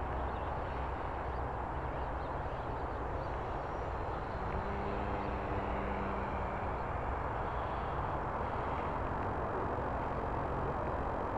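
Wind rushing over the microphone, with the motor of an RC model biplane humming faintly as it passes overhead, coming in about four seconds in and fading a few seconds later.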